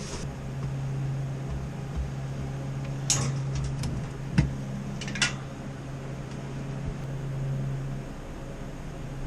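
A steady low machine hum, like a fan or motor running, that stops about eight seconds in. In the middle come several sharp clicks and a short metallic clatter, like tools or parts being handled.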